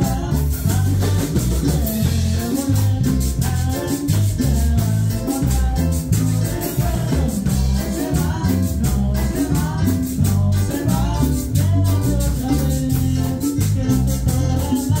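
Live band playing Latin dance music: congas, electric bass, electric guitar and drum kit over a steady dance beat.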